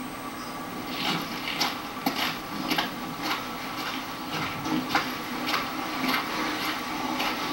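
Hands washing in water in tin buckets, several layered: irregular splashes and sloshes with knocks against the metal, coming about every half second from about a second in, over a steady low hum.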